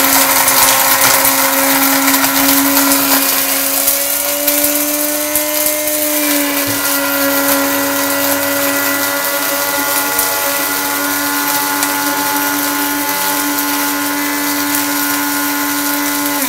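Lloytron electric blade coffee grinder running with its lid held down, grinding a tablespoon of whole coffee beans: a steady high motor whine over whirring hiss. The pitch lifts slightly about five seconds in, then settles.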